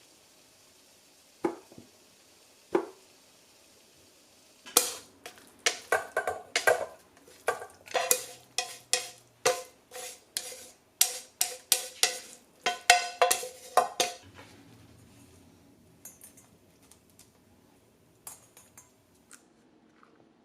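A metal utensil clinking again and again against a ringing ceramic dish, about two or three clinks a second for roughly nine seconds, as in stirring or beating in a bowl. Two duller knocks come before the run, and a few faint clicks follow it.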